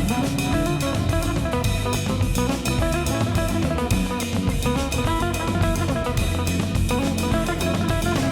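Background music: guitar over a drum kit with a steady beat.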